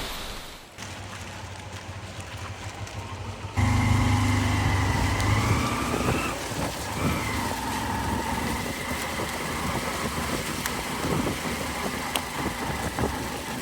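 A motor vehicle's engine running. It cuts in abruptly a few seconds in, and its pitch climbs and then drops about halfway through before holding steady.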